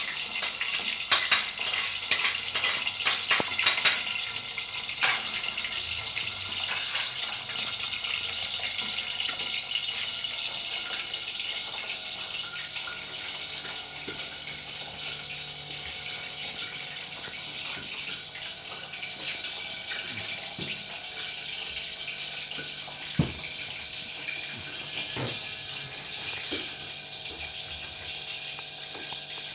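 Spices frying in oil in a pan, a steady sizzling hiss. A metal spatula scrapes and clanks against the pan over the first few seconds, and there is a single knock about two-thirds of the way through.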